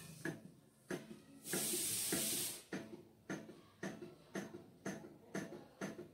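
Flame-powered antique-style table fan running, its hot-air engine knocking in an even rhythm about twice a second. A rushing hiss lasts about a second, starting about a second and a half in.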